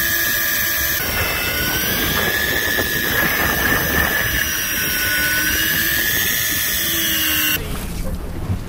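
Daiwa Tanacom 1000 electric fishing reel's motor whining steadily as it winds line in, the pitch wavering slightly. The whine stops abruptly near the end, giving way to wind and boat noise.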